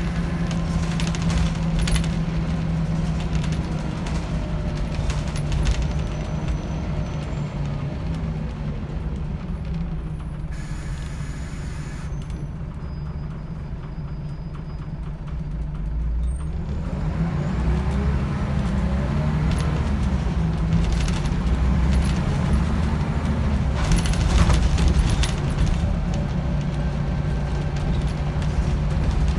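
Scania DC9 diesel engine of a Scania L94UB single-deck bus heard from inside the saloon: running steadily, easing off and quieter through the middle, then rising in pitch as it picks up speed again. Rattles and knocks from the bus's body and fittings run throughout.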